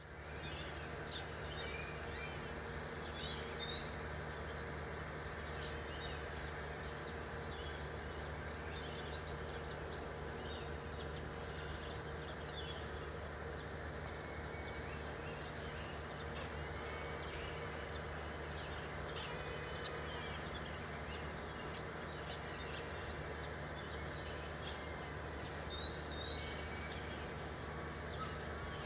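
Steady outdoor ambience of insects chirping in a high, even drone, with a low steady hum underneath. Short high bird chirps come about three seconds in and again near the end.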